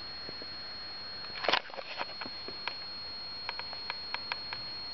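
A short rustle about a second and a half in, then light scattered clicks, over a faint steady high-pitched whine.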